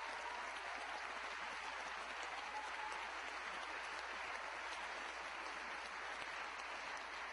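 Large crowd applauding steadily, with a few voices cheering over the clapping.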